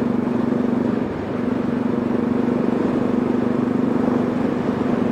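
Motorcycle engine running steadily at cruising speed, with wind rush over the rider's microphone. The engine note eases off briefly about a second in, then holds steady again.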